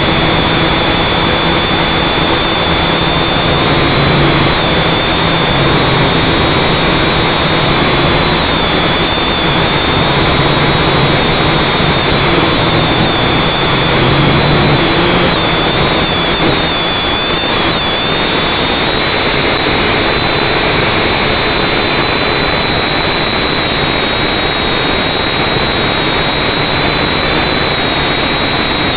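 FPV drone's electric motors and propellers, picked up by its on-board camera: a loud, steady buzz with a high whine that wavers in pitch as the throttle changes.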